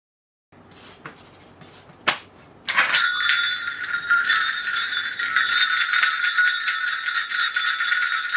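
A cluster of Korean shaman's ritual bells (mudang bangul) being shaken continuously, a dense jingling ringing. It starts about three seconds in, after a few soft handling sounds and a sharp click.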